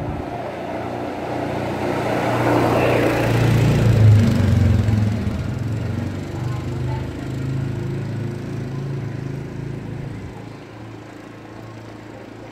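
Quad bike engine running as it approaches and passes, loudest about four seconds in, then fading away.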